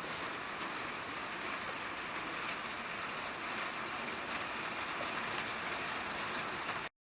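Steady hiss of rain with faint scattered pattering, cutting off suddenly near the end.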